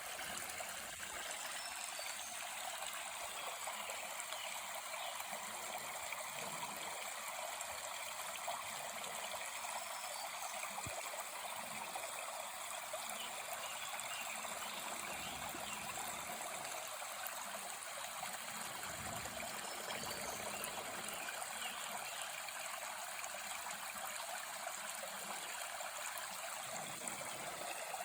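Steady rushing and trickling of a small stream, with a few faint, steady high tones above it.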